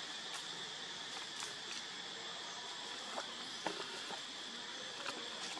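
Steady high-pitched insect drone, with a few short crackles of dry leaves as macaques shift and move on the leaf litter; the sharpest crackle comes about three and a half seconds in.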